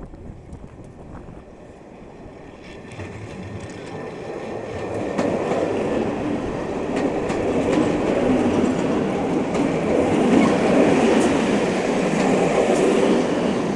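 British Rail Class 421 3-CIG slam-door electric multiple unit arriving and running past close by, its wheels clicking over the rail joints. The noise builds from about four seconds in and stays loud as the carriages go by.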